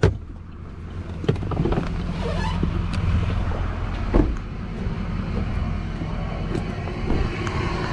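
Chevrolet pickup truck's engine idling steadily, with a couple of sharp thumps, one about a second in and a louder one about four seconds in, and light footsteps on pavement.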